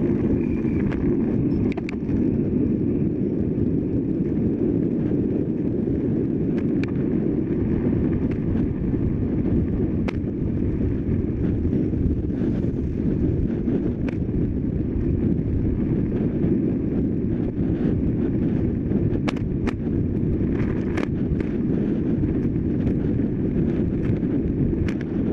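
Steady wind rumble on the microphone of a camera riding on a road bicycle at racing speed, mixed with tyre and road noise, with a few sharp ticks scattered through it.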